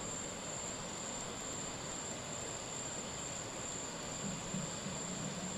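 Steady outdoor hiss with a continuous high-pitched insect drone, typical of crickets, in light drizzle. A faint low hum joins about four seconds in.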